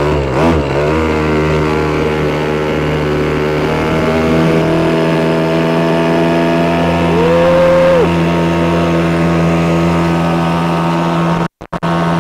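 Hangkai 3.5 hp two-stroke outboard motor running just after starting, unsteady for about the first second, then settling into a steady run as the raft moves off, with a brief rev about seven seconds in.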